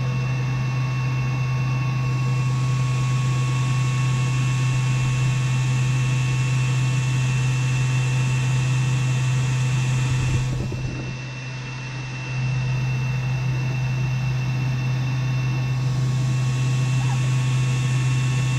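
35-watt diode laser engraver running a light, low-power scoring pass: a loud, steady hum of its fans and air, with a thin high whine over it. The noise drops briefly about ten seconds in, then picks up again.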